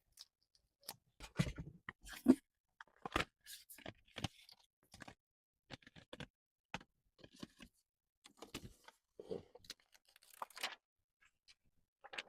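Irregular clicks, taps and scrapes of small tools and parts being handled on a workbench during an iPhone screen replacement, with one sharper knock a little after two seconds in.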